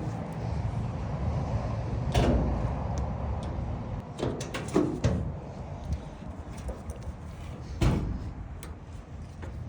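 Sheet-metal dryer cabinet panels being handled and fitted together: several sharp knocks and scrapes of metal against metal, with the loudest about two seconds in and near the eight-second mark.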